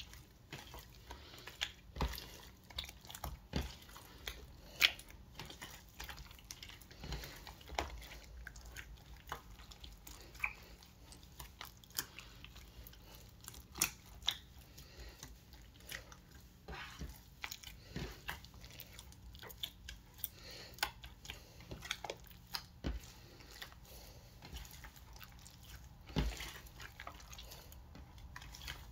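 Glossy slime packed with foam beads being kneaded, pressed and stretched by hand, giving irregular sticky clicks and pops.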